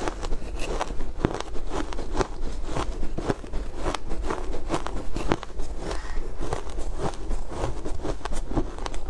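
Close-up crunching of matcha shaved ice being chewed, a steady run of crisp crunches about three a second.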